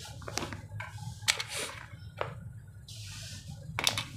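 Handling noise from a metal pistol and a plastic pistol case on a glass counter: a few sharp clicks and knocks, the loudest a little over a second in, and two short hissing rustles, over a faint steady low hum.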